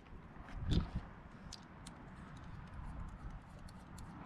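Handling noise from an AR-15 and its red dot sight: a dull bump under a second in, then a few faint, irregular ticks over a low steady rumble.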